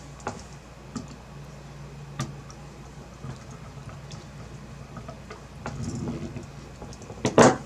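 Light scattered clicks of a screwdriver working the screws of a graphics card's cooler, with a louder knock near the end.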